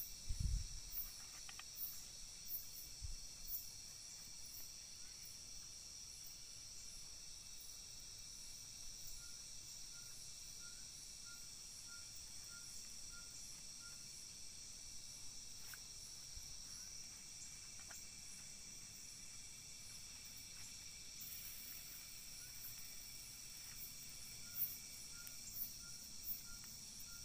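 Steady chorus of night insects, crickets trilling high and unbroken, with a faint short call repeating about twice a second for stretches. A few soft knocks in the first few seconds.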